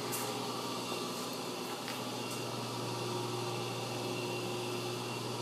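Steady hum and airy hiss of a shop ventilation fan running, with a low drone throughout and a couple of faint clicks.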